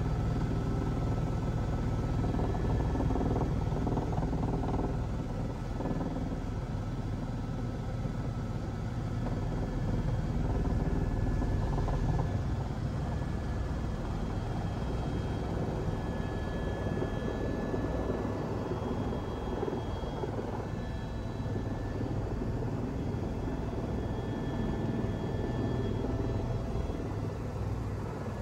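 Helicopter turbine engine and rotors heard from inside the cabin: a steady, loud drone with faint high whines above it, as the helicopter descends and settles onto the helipad.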